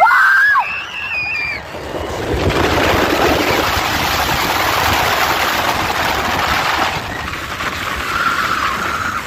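Fury 325 steel roller coaster train rushing along its track: a loud rush of noise that swells about two seconds in, holds for about five seconds, then eases. A brief high cry glides up and down at the start.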